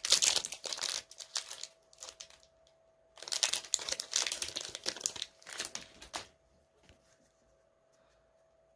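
Wrapper of a 2020 Topps Heritage baseball card pack being torn open and crinkled by hand, in several bursts that stop about six seconds in.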